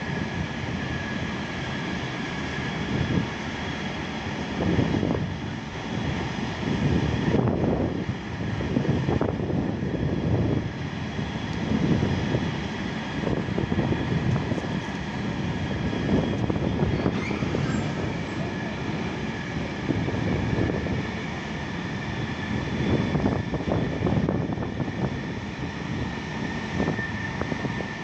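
Train noise at a station platform: a low rumble that swells and fades irregularly, with a steady high whine above it.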